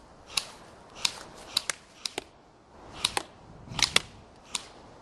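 Airsoft rifles firing: about ten sharp snapping shots at irregular intervals, some in quick pairs.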